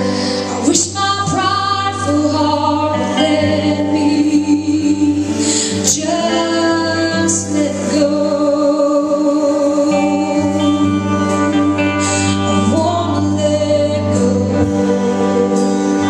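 Worship music: a woman singing long held notes over sustained instrumental chords.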